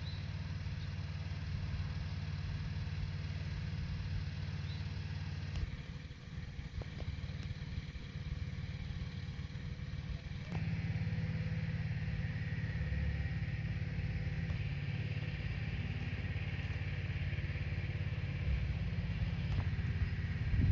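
Steady low drone of an engine idling in the background.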